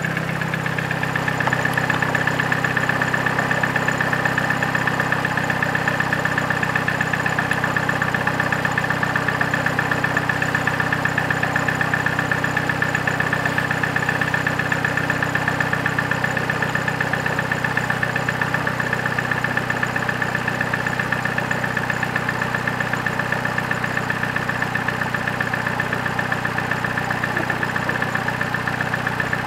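Opel Corsa D's 1.4 Ecotec four-cylinder petrol engine idling steadily at a raised cold-engine speed of about 1000 rpm while it warms up after a start in frost, heard up close under the open bonnet, with a steady high note over the engine.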